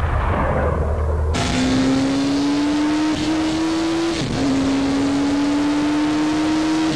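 A jet passing with a falling whoosh. About a second and a half in, it cuts sharply to a Honda CBR1100XX Blackbird's inline-four engine accelerating hard, its pitch climbing steadily. The pitch drops briefly at a gear change about four seconds in, then climbs again.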